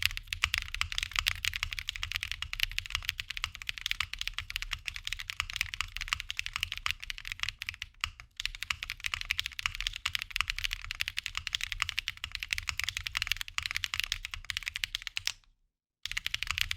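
Continuous typing on a Jris75 mechanical keyboard built with Mint Chocolate Chips switches on an aluminium plate with no foam: a dense, fast stream of key strikes. There is a brief break about eight seconds in and a short silence near the end before the typing resumes.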